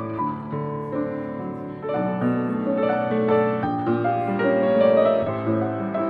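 Solo piano improvising on a jazz ballad standard: a melody line over chords that change every half second or so, swelling a little near the end.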